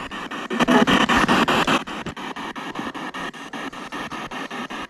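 P-SB7 spirit box sweeping the radio bands: static chopped by rapid, evenly spaced clicks, about ten a second, with a louder stretch of garbled radio fragments from about half a second to two seconds in.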